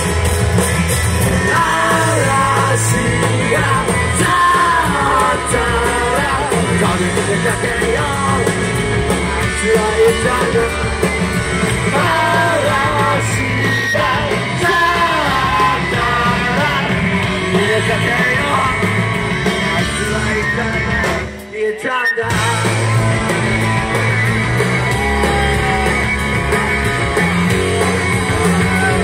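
Live rock band playing loud: a male singer with electric guitar and drums. The band stops for a brief break about three quarters of the way through, then crashes back in.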